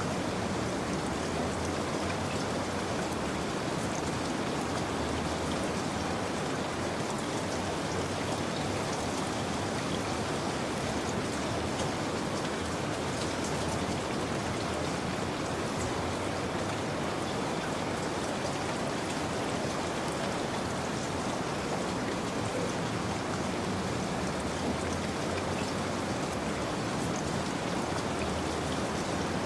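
Steady rain falling, a continuous even hiss of many drops with no thunder.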